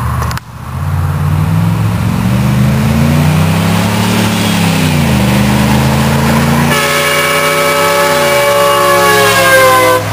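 Chevy Silverado's 350 small-block V8 driving by, its engine pitch rising and falling. About two-thirds in, the truck's train horns sound a loud multi-note chord that is held to the end, its pitch sliding slightly down as the truck passes.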